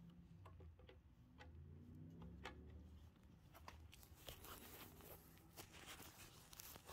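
Faint clicking of a lever-action grease gun being pumped to force grease into a boat trailer wheel hub's Bearing Buddy. The clicks come more often in the second half.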